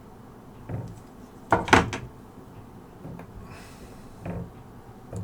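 Tools and small objects handled and set down on an electronics repair bench: a few scattered knocks, the loudest a quick run of two or three sharp clacks about one and a half seconds in.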